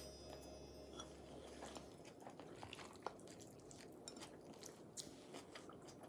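Quiet eating sounds: faint chewing, with utensils tapping and scraping now and then against ceramic bowls and a pot. Background music fades out about two seconds in.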